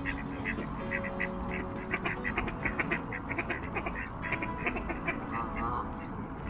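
Ducks quacking over and over in a fast, chattering series.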